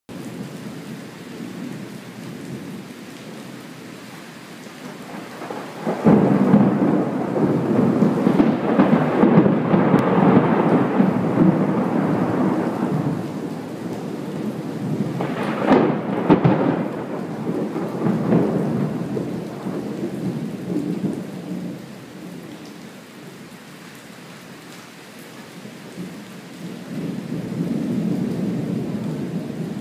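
Thunder over steady rain. A long rumble breaks in suddenly about six seconds in, a sharper crack comes about halfway through, and a new rumble builds near the end.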